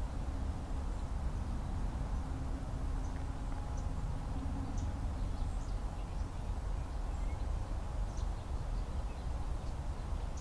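Steady low rumble of outdoor background noise, with faint, scattered short chirps of distant songbirds.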